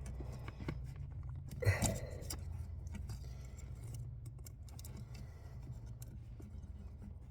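Scattered light clicks and rattles of a small plastic retaining clip and the brake light switch being handled and worked into place under a truck's dashboard, with a short vocal sound, like a grunt, about two seconds in.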